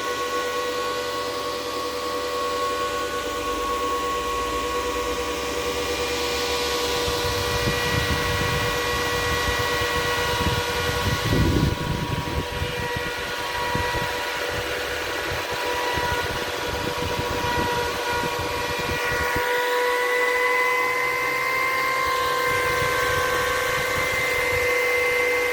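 Antminer S9 bitcoin miner's cooling fans running at speed: a steady whine over a rush of air, the pitch edging up slightly about twenty seconds in. Irregular low rumbling through the middle stretch.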